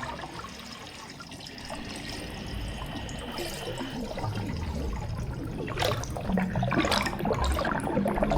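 Underwater water ambience: a muffled wash of moving water with a low rumble, and louder bubbling about six seconds in and again about a second later.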